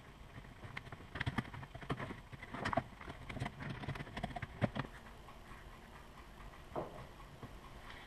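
Small knife worked along the stitched edge of an old leather sheath, making irregular light clicks and scrapes that thin out after about five seconds.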